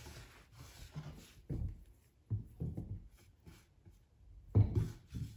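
Hands mixing and kneading a soft cookie dough of flour, eggs, sugar and oil in a glazed clay bowl: irregular rubbing and pressing sounds with a few dull, soft thumps as the dough is pushed against the bowl.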